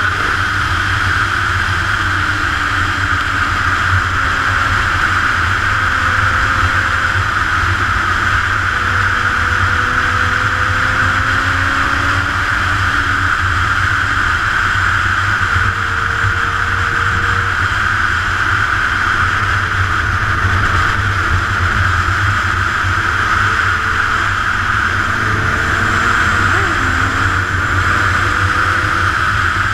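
Steady, loud wind rush over a camera on a fast-moving sport motorcycle. Under it the engine sounds faintly, its pitch climbing slowly and then dropping back several times.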